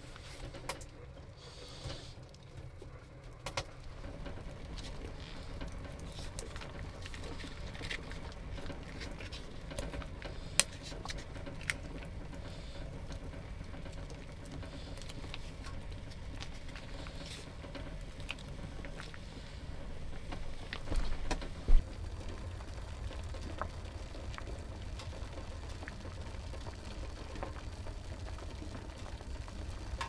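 Hand cooking sounds: scattered clicks and taps of food and utensils being handled over a steady low rumble, with one sharp knock about two-thirds of the way through.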